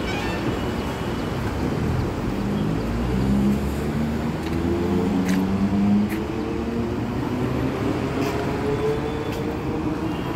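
Electric multiple unit (EMU) suburban local train pulling away: its traction motors whine in a slowly rising pitch as it picks up speed, over a steady rumble, with a few sharp clicks in the middle.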